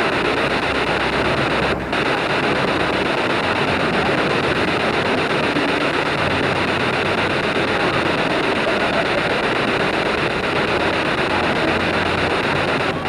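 SB7 spirit box radio sweeping through stations, giving a steady rush of static with a brief break about two seconds in.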